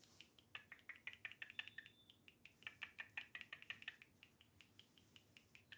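Cockatiel chattering softly: a run of faint, quick chirps and clicks, with one short thin whistle about a second and a half in.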